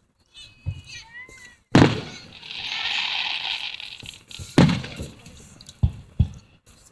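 Fireworks exploding: a sharp bang about two seconds in, followed by a crackling hiss for about two seconds, then more bangs a little before five seconds and twice close together near the end.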